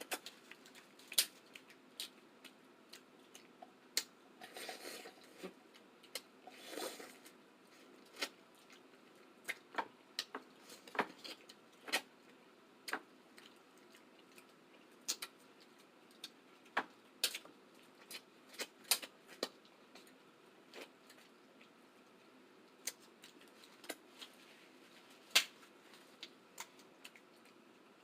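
Close-up eating sounds of seafood boil: scattered sharp clicks and smacks of mouths and food, irregular and some seconds apart, with two short noisier sounds about five and seven seconds in.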